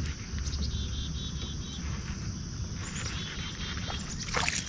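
Outdoor river ambience: a steady low wind rumble on the microphone with a faint high trill of rapid chirps, about five a second, lasting about a second. A couple of sharp noises come near the end.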